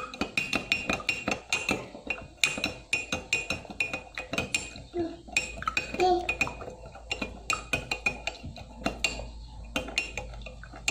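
Metal spoon stirring sugared water and chopped kencur, clinking rapidly and unevenly against the sides of the container.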